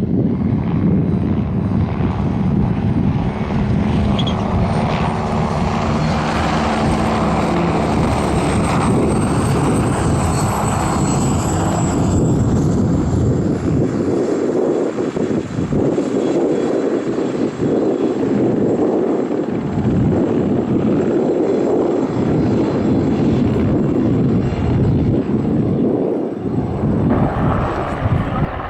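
Turbine helicopter flying, its rotor noise dense and steady, with a thin high turbine whine above that drops slightly in pitch partway through.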